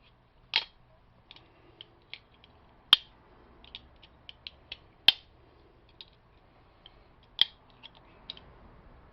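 Screwdriver prying at a snap ring on a brass door-handle mechanism, with no snap ring pliers to hand: irregular light metal clicks and ticks, four of them sharper and louder.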